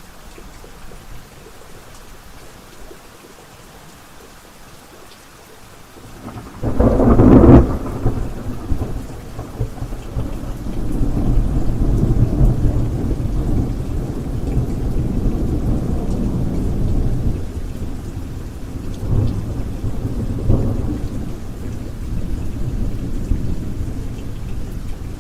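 Steady rain falling, then a sudden loud thunderclap about six seconds in, followed by long low rolling thunder over the rain, swelling twice more later on.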